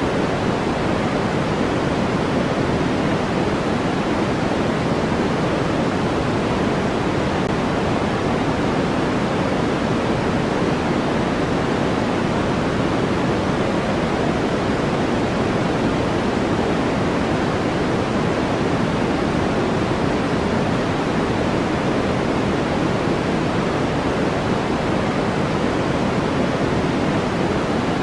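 Steady generated sleep-aid noise: an even, unbroken rushing hiss, fuller in the lows and mids than in the highs, that does not change.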